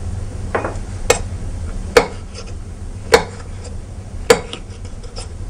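Kitchen knife cutting strips of roasted pepper, the blade knocking on a wooden cutting board: four sharp taps about a second apart.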